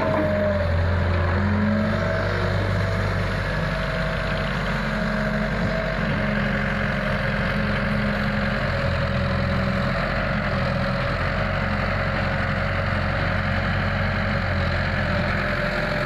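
Diesel engines running steadily with an even hum: a tracked excavator working its boom and bucket, and an Eicher 650 tractor idling beside it.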